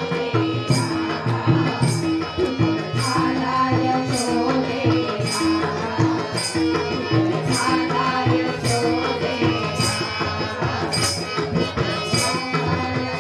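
Gaulan folk music: a hand drum plays a steady pattern under sustained pitched notes, with a bright metallic jingle or cymbal hit about once a second.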